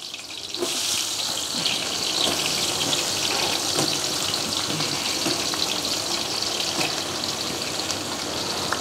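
Sliced onions tipped into a large pot of hot oil with whole spices. A steady loud sizzle with fine crackling starts about half a second in as they hit the oil and fry.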